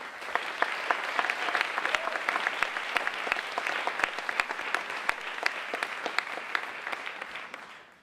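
Audience applauding: many hands clapping in a dense, even patter that starts at once and fades out near the end.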